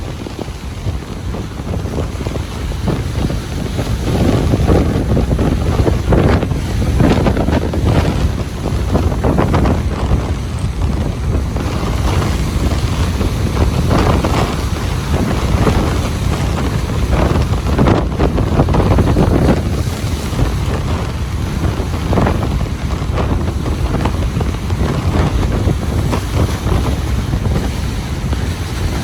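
Ocean surf breaking and washing on a beach in repeated swelling surges, with wind buffeting the microphone.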